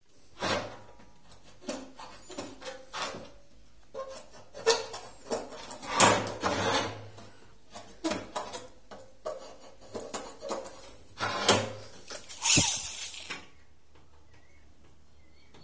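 Aluminium window profiles being handled on a wooden workbench: irregular knocks, clatters and sliding scrapes of metal on wood. A longer, louder scrape comes near the end, then it stops.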